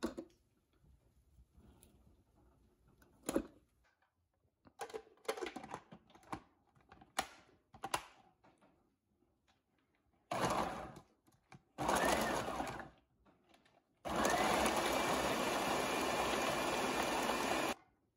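Vegetable pieces knocking into a plastic food processor bowl, then the food processor motor pulsed twice, about a second each, and run steadily for about four seconds while chopping the vegetables, stopping suddenly near the end.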